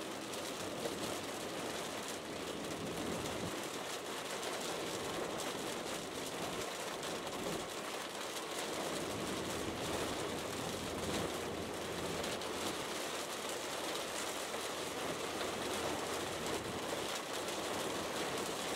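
Steady hiss of rain and road noise heard from inside a car driving in the rain.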